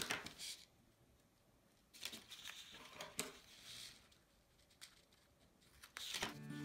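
Faint handling sounds of double-sided score tape on cardstock: a few short rustles and clicks as the tape is pulled from its roll, snipped with small scissors and pressed onto the frame corner. Music comes in near the end.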